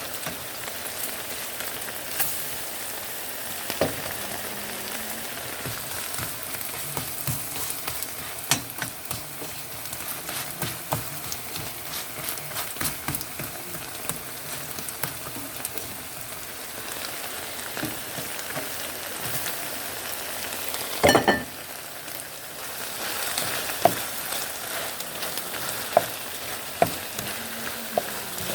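Food frying in an oiled pan, a steady sizzle with scattered clicks and knocks from stirring, and one louder clatter about three-quarters of the way through.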